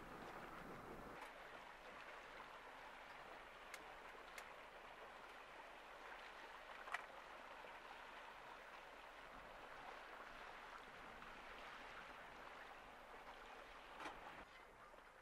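Faint lapping of water, with a few scattered light clicks.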